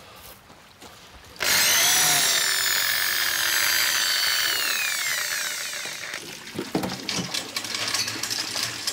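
A small power tool starts suddenly about a second and a half in. It runs with a high whine whose pitch slides up and down as it works wood, then fades over a few seconds. A few light knocks and taps follow near the end.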